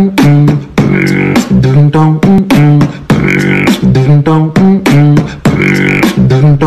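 Music: a loud, repeating loop of stepping low notes with sharp beats and vocal-like sounds, the phrase coming round about every two and a half seconds.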